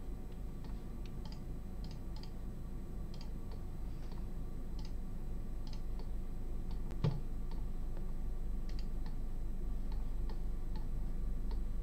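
Computer mouse clicking at an uneven pace of one or two clicks a second, over a low steady hum. About seven seconds in there is one louder knock.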